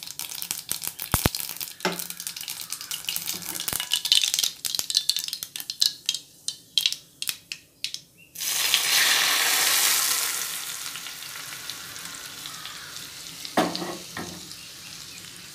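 Mustard seeds popping and spluttering in hot sesame oil in a pan, a quick run of sharp crackles. About eight seconds in, the hot tempering is poured over the onion chutney and hisses loudly, and the sizzle slowly dies away. A couple of knocks near the end.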